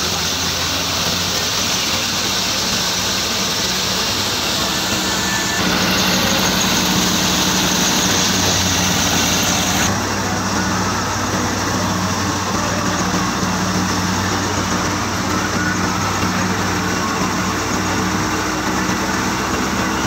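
Wheat thresher running steadily: a low engine hum under a broad rushing noise, the mix shifting slightly about six and ten seconds in.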